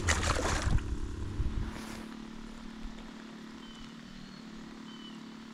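A hooked fish splashing at the surface beside a boat, a short burst in the first second. After it comes a steady low hum from a boat motor, with a faint hiss of rain on the water.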